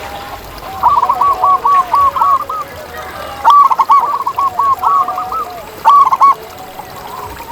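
Zebra dove singing: three bursts of rapid, short staccato cooing notes, the second and third starting about three and a half and six seconds in, over fainter, lower calls from another bird.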